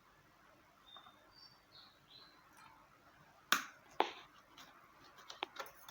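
Kitchen utensils and containers handled while seasoning minced meat: two sharp knocks about half a second apart a little past halfway, then several lighter clicks.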